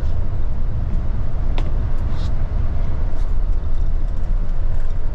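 Higer coach on the move: a steady low rumble of engine and road noise, with a few light clicks about one and a half to two seconds in.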